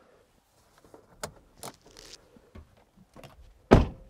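A few faint clicks and knocks, then the Mitsubishi Delica D5's driver door shutting with a single solid thud near the end.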